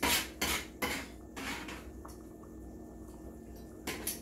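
A spoon scraping and stirring in a pot of black-eyed peas: a few strokes about two a second, then a lull and one more stroke near the end.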